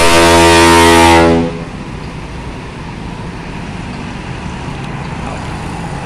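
A bus's roof-mounted 'ship horn' (klakson kapal) air horn blaring one deep, steady blast that cuts off sharply about a second and a half in. After it, the bus's engine runs on with a steady low rumble.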